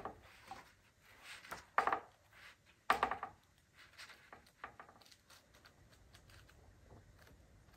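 Pages of a hardcover book being flipped by hand: a few quick paper flicks and handling taps, the two loudest about two and three seconds in, then only faint rustles.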